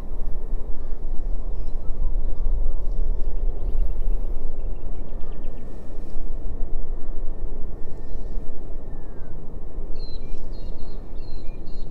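Wind buffeting the microphone, a steady low rumble. From about ten seconds in, a bird calls in a run of short repeated chirps.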